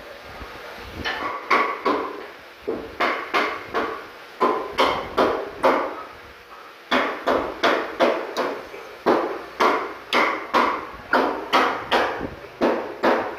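Repeated hard knocks of blows driving a wooden bed leg onto the joint of a carved wooden bed panel, about two a second, with a short pause about halfway through.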